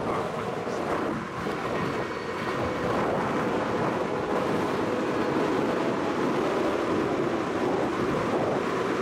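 Strong wind of about 25 knots rushing and buffeting across the microphone, a steady noise with small gusty swells.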